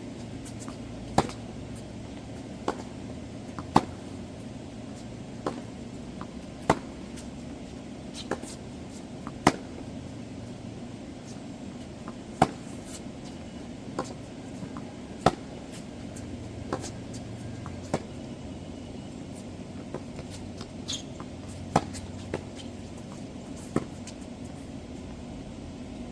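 Tennis balls struck by rackets in a steady baseline rally. Sharp pops come about every three seconds, with fainter bounces and far-side hits between them, over a steady background hiss.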